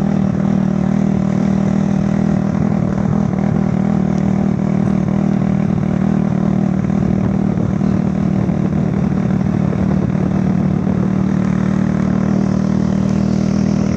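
Small engine of the moving vehicle that carries the microphone, running steadily at a constant speed as an unbroken deep hum.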